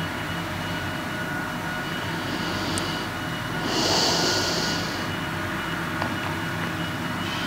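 A steady machine-like drone with a faint hum, swelling briefly with a hiss about four seconds in.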